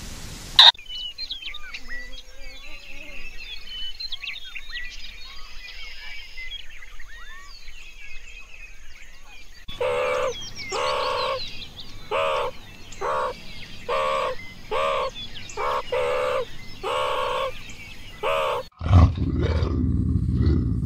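Faint scattered chirping of small birds, then from about ten seconds in a run of about a dozen short, pitched meerkat calls, evenly spaced a little under a second apart. Near the end these give way to a low rumbling noise.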